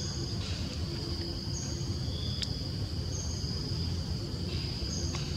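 Insects calling: a steady high-pitched buzz, with shorter tones a little higher and lower cutting in every second or two, over a low steady rumble. One sharp click about two and a half seconds in.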